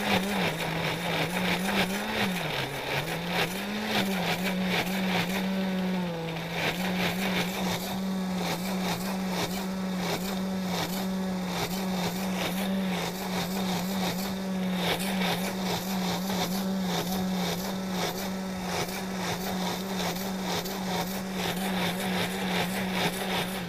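Countertop blender motor running steadily, blending a thick chili sauce. Its pitch dips briefly and recovers a few seconds in, then holds until it switches off at the very end.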